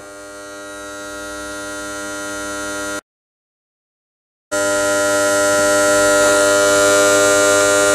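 A steady hum with many overtones, holding one pitch, that grows louder over the first three seconds. It cuts to dead silence for about a second and a half, then comes back louder and steady.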